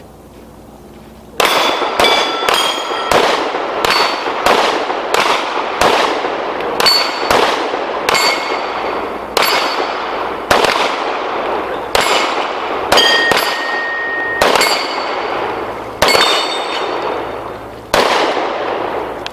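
Rapid pistol fire from two shooters on steel targets: a quick string of shots starting about a second in, some in close pairs, with steel plates ringing after many hits. It slows to a few last shots near the end.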